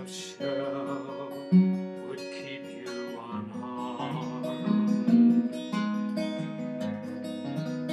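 Steel-string acoustic guitar, capoed, fingerpicked in a folk accompaniment: plucked bass and treble notes ringing over one another.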